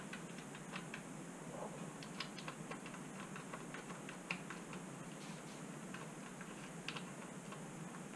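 Faint, irregular small clicks and taps of hands working a tubeless valve and its lock ring on a mountain bike rim.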